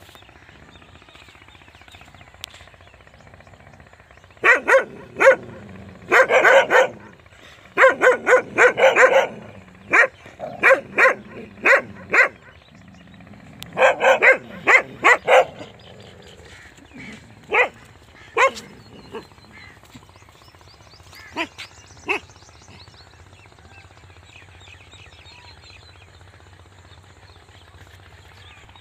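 A dog barking in quick runs of loud barks starting about four seconds in, then only a few single barks, stopping about three-quarters of the way through.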